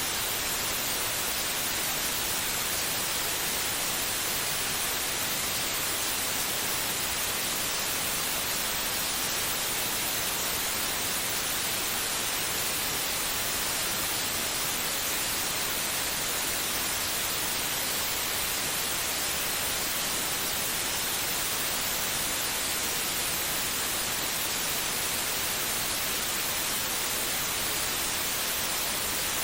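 Steady white noise for soothing a baby to sleep: an even, unbroken hiss, strongest in the high range, that does not change.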